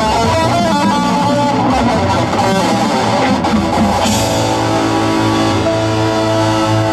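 Rock-styled marching band show music led by electric guitar and electric bass: a quick run of short notes, then about four seconds in the music settles into held chords over a pulsing bass line.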